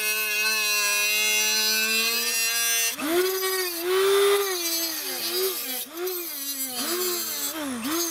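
Angle grinder with a cutoff wheel rough-cutting a knife blank out of 3/16-inch O1 tool steel. The motor's whine holds steady for about three seconds, then keeps dipping and recovering in pitch as the wheel works through the steel.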